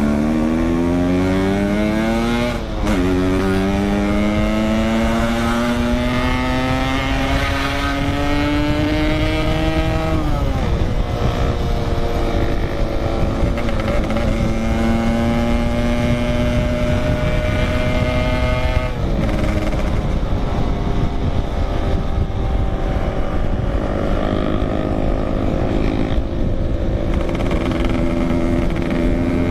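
Yamaha RX-King 135cc single-cylinder two-stroke motorcycle engine under way, pulling hard through the gears. Its pitch climbs in each gear and drops sharply at the shifts about 3, 10 and 19 seconds in, with wind rumbling on the microphone.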